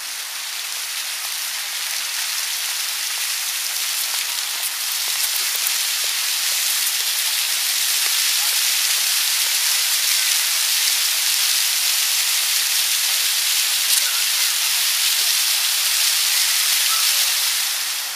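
Water jets of a park fountain splashing, a steady hiss that grows louder over the first several seconds as the jets rise, then drops off near the end as they sink.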